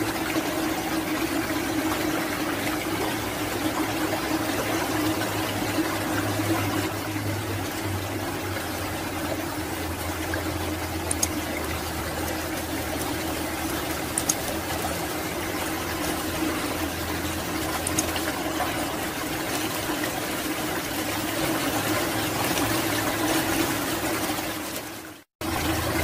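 Steady rush of flowing water with a low steady tone running through it. It cuts out abruptly for a moment near the end.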